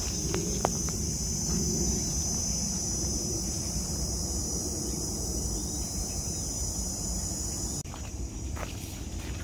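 A steady, high-pitched buzzing chorus of cicadas over footsteps and rustling on a dirt forest trail. A few sharp snaps come in the first second, and the buzz cuts off abruptly near the end.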